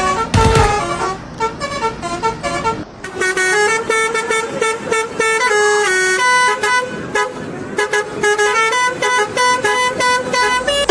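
Telolet bus horn, a multi-tone air horn, playing a quick melody of stepping notes that keeps going, with a few low thuds in the first second.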